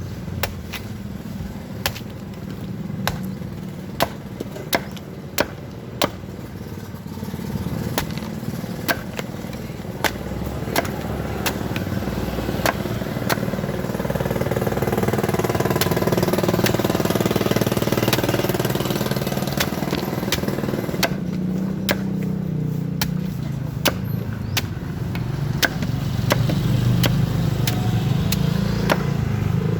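Blade chopping into a young coconut: a string of sharp strikes, irregularly spaced about a second apart, pausing for a while midway. Underneath, an engine runs steadily and grows louder partway through.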